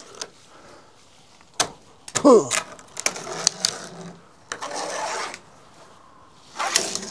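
Screen mesh and plastic spline being pulled out of a vinyl Screen Tight screen track by hand: sharp snaps and clicks, a short squeak falling in pitch about two seconds in, then several rustling, scraping pulls of the screen.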